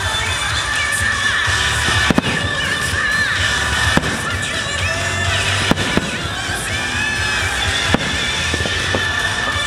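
Aerial fireworks bursting with several sharp bangs spread across a few seconds, over the show's music playing continuously.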